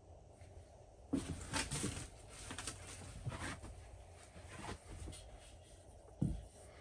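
Workbench handling noises: a run of sharp clicks and knocks, then a single dull thump near the end as a wooden rifle stock is handled in its padded bench block.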